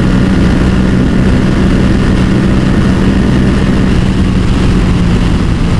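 Yamaha XSR700's parallel-twin engine with a Yoshimura exhaust running at a steady high speed, its note holding level, under heavy wind noise on the microphone.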